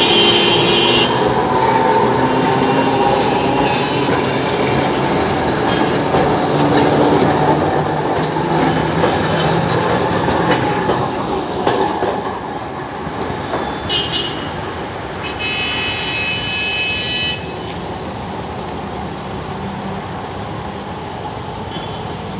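A multi-car Alexandria Raml tram passing close by: a steady rumble of wheels on rails that fades after about twelve seconds as it moves away. There are a few brief high-pitched tones near the start and again in the middle.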